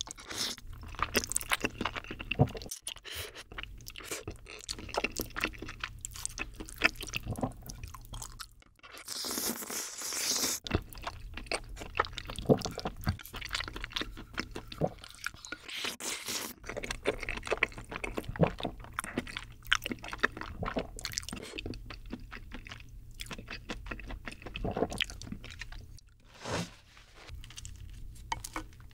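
Close-miked eating sounds of bacon cream pasta: wet chewing and mouth clicks, with noodles being slurped in.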